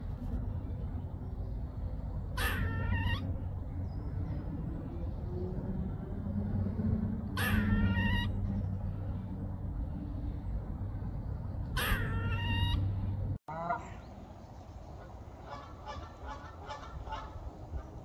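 Three loud animal calls about five seconds apart over a steady low rumble, then after a sudden break, fainter repeated honking from a small flock of Canada geese.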